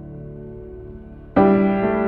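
Soft, slow piano music: held notes fade away, then a new, louder chord is struck near the end.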